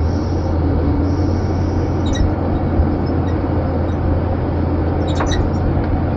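Heavy logging machine's diesel engine running steadily, heard from inside the cab, with a couple of brief sharp clicks or knocks.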